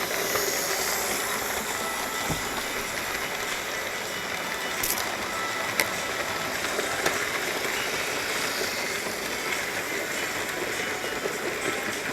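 Lima Class 31 model locomotive running on its track, a steady running hiss with a few sharp clicks.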